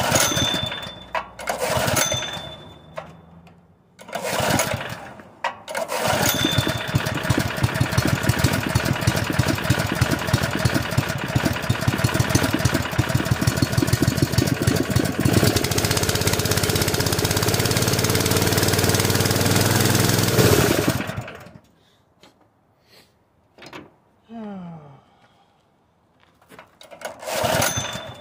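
Honda GX160 single-cylinder engine driving an air compressor on propane. It stumbles in a few short spurts, then runs steadily for about fifteen seconds, its note changing partway through, and stops abruptly. The popping and dying is what the owner takes for a valve fault: weak valve springs and a needed valve job.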